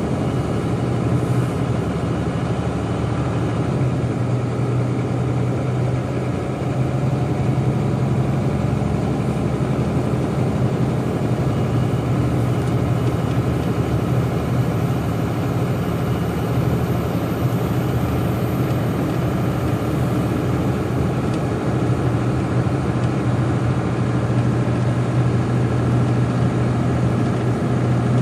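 Idling engines at an airport ramp: a steady low drone, with a faint high whine in the middle.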